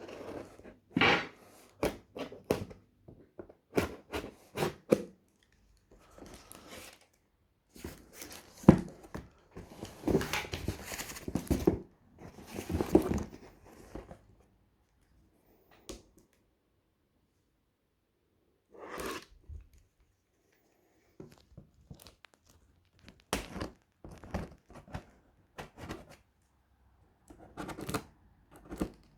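A cardboard shipping box being opened by hand: packing tape tearing and cardboard and packing material rustling, with knocks and clicks in irregular bursts and pauses. There is a longer tearing stretch about ten to fourteen seconds in.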